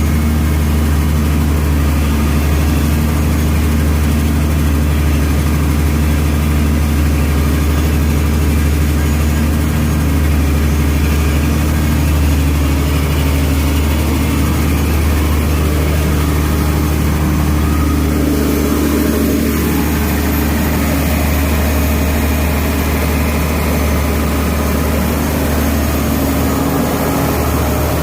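Engine-driven 200 kW generator set running steadily at a constant speed, with a deep, even hum; its tone shifts slightly about two-thirds of the way through.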